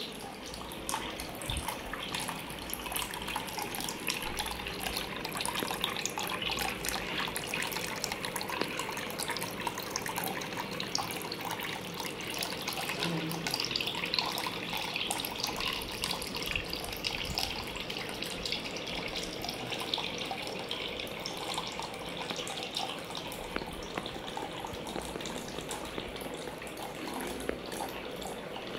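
Thin streams of water pouring from three small pipe spouts into a tabletop aquarium. The sound is a steady trickling and splashing.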